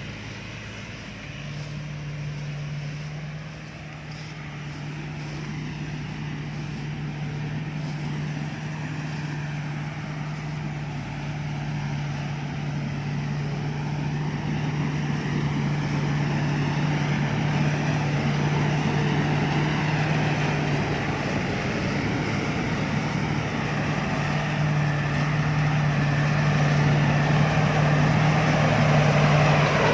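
Worapot Karnchang combine harvester's engine running with a steady hum, growing steadily louder as the machine comes closer.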